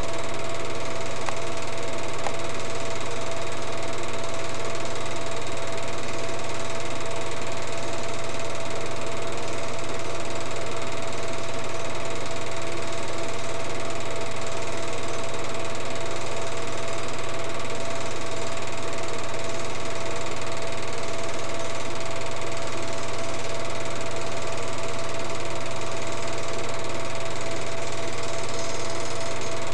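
Home-movie film projector running: a steady mechanical whir with a constant hum underneath, unchanging throughout.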